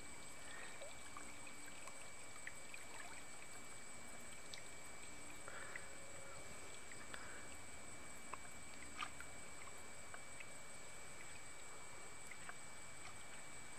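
Water trickling and dripping off a lift net as it is raised out of the river, with scattered small clicks and one sharper tick about nine seconds in, over a faint steady hiss.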